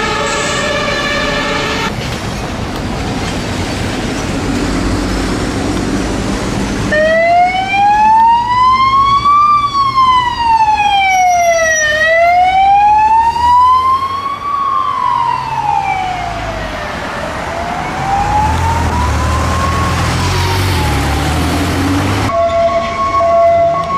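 Emergency vehicle sirens in traffic, in several cuts. First a steady-pitched siren, then a few seconds of traffic noise. Then a siren wails slowly up and down, each rise and fall taking about five seconds, and fades over three cycles; a steady-pitched siren cuts in near the end.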